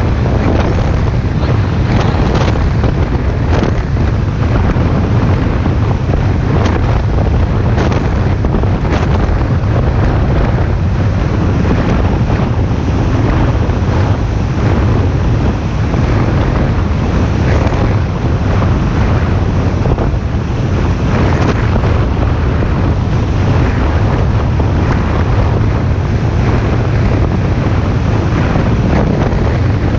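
Speedboat under way at sea: heavy wind noise buffeting the microphone over the steady low drone of the boat's engine, with frequent short slaps and splashes as the hull runs through the waves.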